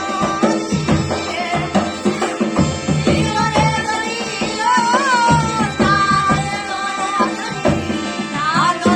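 Rajasthani folk devotional song: a wavering, ornamented melodic line over a steady hand-drum beat.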